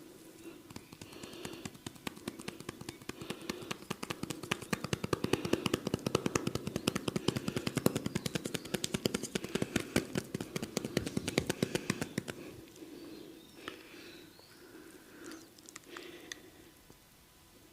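Barber's hands doing rapid percussive chopping massage: a fast, even run of slaps on skin, several a second, that builds up and stops about twelve seconds in.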